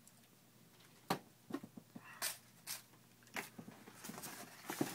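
Light clicks and knocks from handling a foam RC model airplane, about five of them spread a second or so apart.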